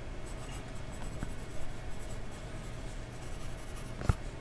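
Fine-nib fountain pen scratching across ruled notebook paper as it writes a line of letters. A single sharp tap comes about four seconds in.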